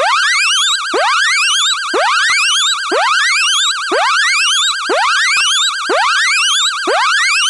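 Personal security alarm buzzer sounding loudly: a rising whoop repeated about once a second over a fast, continuous warbling tone.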